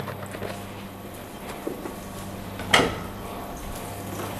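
Butter and a little cooking oil warming in a wok, with a faint crackle over a steady low hum. A single sharp knock a little under three seconds in is the loudest sound.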